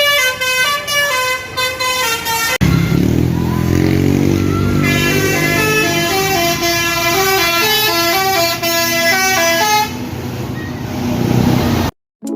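Telolet basuri multi-tone bus horn playing a fast tune of stepped notes. A louder, deeper tune cuts in abruptly about two and a half seconds in, and the sound drops out briefly near the end.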